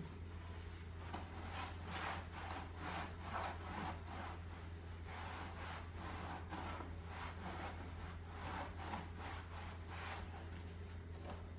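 Rhythmic rasping strokes, about two a second, over a steady low hum; the strokes stop near the end.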